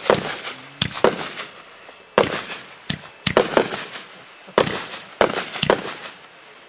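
1.3G display fireworks firing: an irregular series of about ten sharp bangs, each fading out in a short echo.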